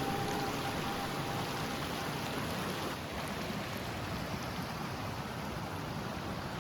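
Steady rush of a mountain creek running high with snowmelt.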